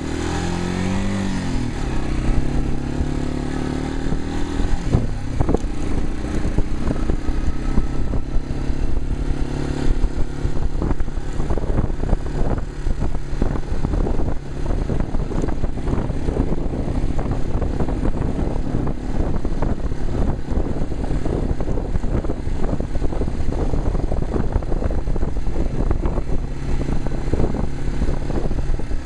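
Yamaha TW200's single-cylinder four-stroke engine running while riding, its pitch falling over the first couple of seconds, then holding a steady note under frequent short knocks and rattles.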